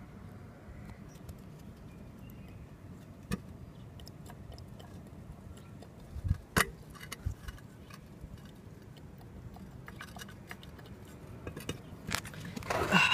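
Light metallic clicks and knocks from a removed turbocharger being handled and turned over, with one louder knock about halfway and a short clatter near the end, over a steady low hum.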